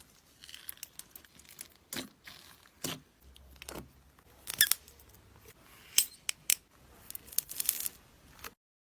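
Slime being squeezed and worked by hand, giving an irregular series of sharp crackly pops and clicks. The sound stops abruptly near the end.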